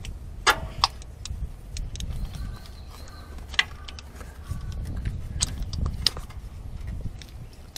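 A few sharp metallic clicks and taps as a wrench and socket extension are worked by hand to tighten a spark plug, over a steady low rumble.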